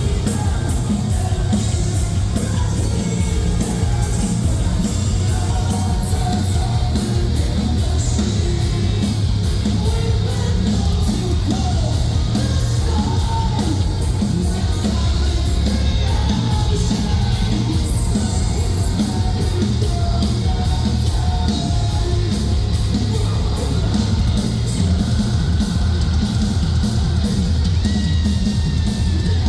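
Metalcore band playing live at a steady high level: heavy rock music with screamed and sung vocals over dense, fast drumming.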